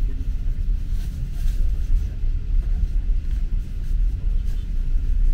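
Low, steady rumble of a moving passenger train.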